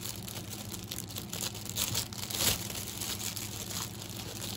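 Plastic bag crinkling in irregular bursts as an item is pulled out of it, loudest about halfway through.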